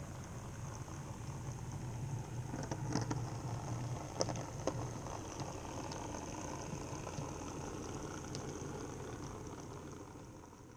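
N-scale model train running along the track: a steady whir and rumble of the running train with a few sharp clicks from the wheels on the rails, a little louder as it comes close, then fading away near the end.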